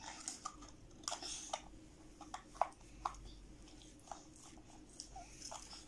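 Light clicks and taps of a miniature toy pot and its lid being handled, a handful of short, scattered knocks.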